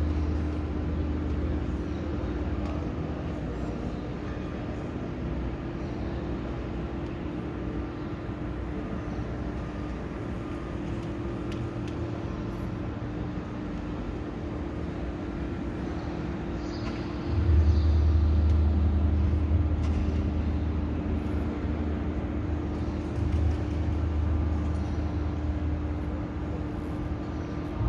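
Steady outdoor ambient hum with a constant low tone. A deep rumble swells suddenly about 17 seconds in and again about 23 seconds in.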